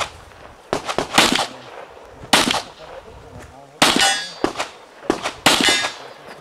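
Pistol shots fired singly and in quick pairs over several seconds. Steel targets ring with a clang after some hits, most clearly about four seconds in and again near the end.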